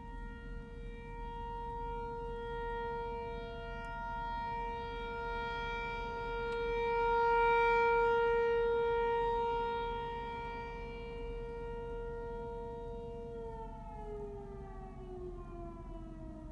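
Tornado warning siren holding a steady howling tone that swells louder around the middle, then winding down, its pitch falling steadily over the last few seconds.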